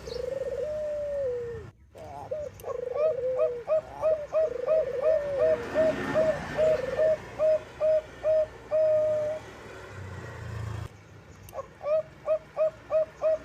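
Zebra dove (Bangkok perkutut) cooing. It starts with a drawn-out warbling coo, then a long run of short, quick coo notes at about two to three a second. The notes pause briefly about two-thirds of the way through, then start again near the end.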